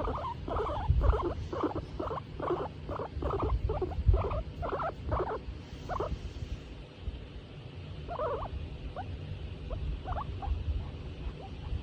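Skinny guinea pig giving a rapid run of short squeaks, about two to three a second, thinning to scattered squeaks after about six seconds, over a low rumble. Contented calls from a guinea pig being stroked.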